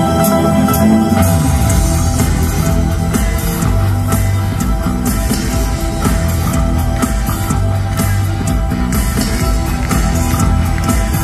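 Live rock band playing through an arena sound system, with keyboards, guitar, bass and drums. A deep bass line joins about a second and a half in, under a steady beat.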